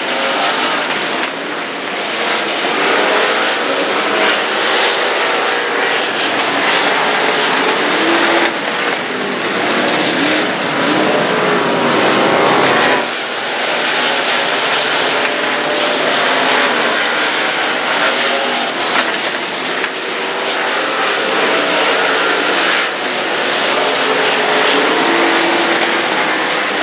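Several dirt-track modified race cars running flat out on a clay oval, their V8 engines loud and continuous, rising and falling in pitch as the cars pass and lift for the turns.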